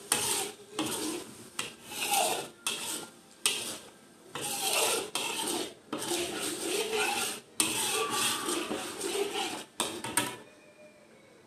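Metal spatula scraping and stirring thick chili sauce around a steel wok in a series of irregular strokes, stopping about ten seconds in.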